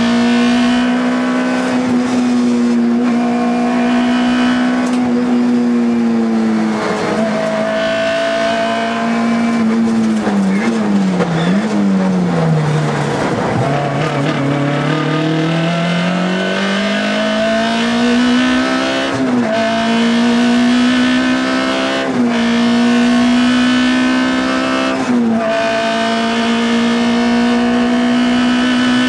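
Škoda Felicia Kit Car's four-cylinder rally engine heard from inside the cockpit at full throttle, revs held high with short dips at each upshift. About ten seconds in, the revs fall away in quick downshifts for a corner, with tyre noise, then climb steadily back up.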